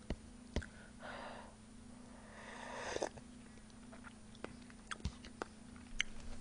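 Close-miked eating of instant cup ramen: two soft slurps of noodles and broth with chewing, and a scattering of small utensil clicks against the cup.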